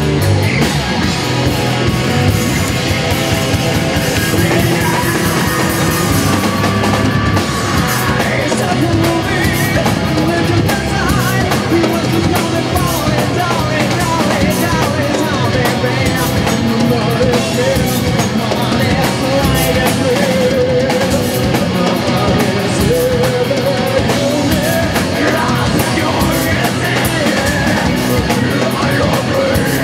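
Live rock band playing loud: electric guitars and a drum kit, with a singer's vocals over them.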